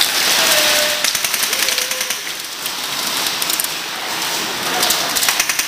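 Airsoft guns firing in rapid full-auto bursts, a fast clatter of shots, with a short burst about a second in and another near the end.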